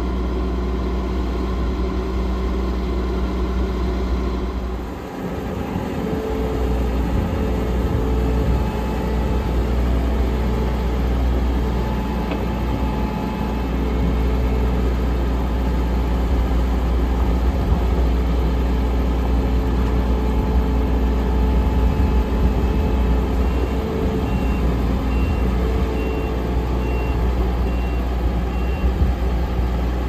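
Lexion 560 combine's diesel engine running steadily, dipping briefly about five seconds in and then running a little harder as the machine manoeuvres to pick up its flex header. A reversing alarm beeps repeatedly through the last several seconds.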